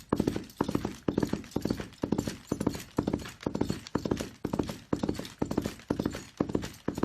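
A horse galloping: a steady rhythm of about two strides a second, each stride a quick cluster of hoof strikes.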